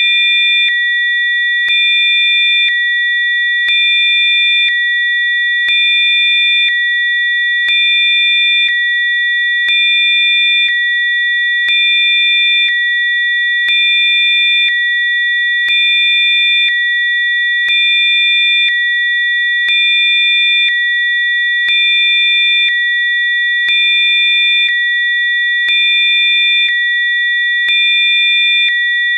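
Electronically generated sine tones for sound-therapy listening: three steady high-pitched tones sounding together. The level steps up and down about once a second, with a faint click at each step.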